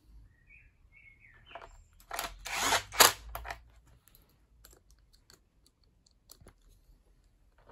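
Cordless impact driver run in a short burst of about a second and a half, about two seconds in, driving a screw into the nail gun's plastic housing, with small tool-handling clicks and knocks around it.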